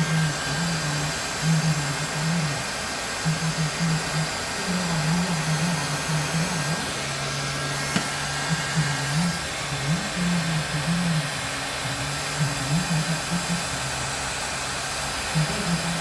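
Heat gun blowing steadily, shrinking and melting solder-seal heat-shrink sleeves over a spliced wire, with a wavering low motor hum under the airflow hiss.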